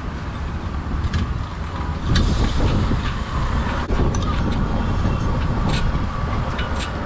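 Steady low rumble of street-stall background noise, with a few sharp clicks scattered through it.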